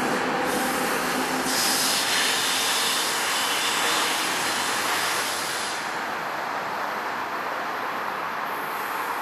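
NJ Transit push-pull train of Comet coaches, pushed by an ALP-46A electric locomotive at the rear, rolling past: a steady rush of steel wheels on rail. The hiss eases about six seconds in, as the locomotive goes by.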